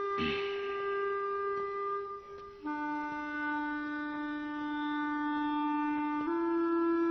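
Background score of slow, long-held wind-instrument notes, stepping to a lower note about two and a half seconds in and back up near the end, with a brief falling swoosh right at the start.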